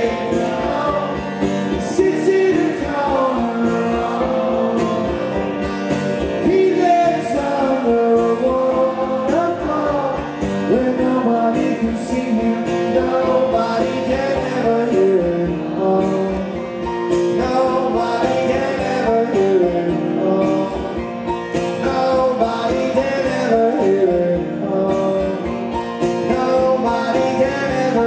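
Live rock band playing: guitars over a steady bass and drum beat, with no clear sung words.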